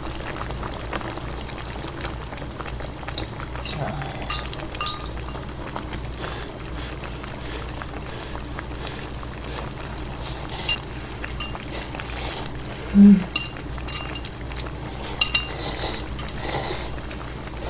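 Chopsticks clicking against a ceramic bowl and repeated slurping of ramen noodles and kimchi-stew broth. A short 'mm' sound from the eater about thirteen seconds in is the loudest moment.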